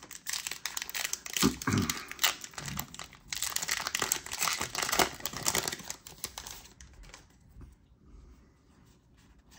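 Foil wrapper of a Yu-Gi-Oh! booster pack crinkling and tearing as it is opened by hand. About six seconds in the crinkling stops, leaving faint handling of the cards.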